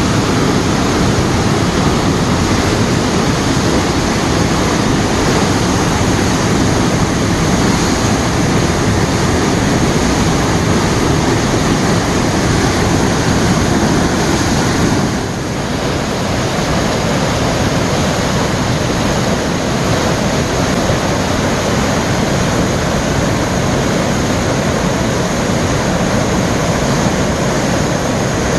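Waterfall in heavy spate after much rain, a loud, steady rush of water. About halfway through it dips briefly and carries on a little quieter.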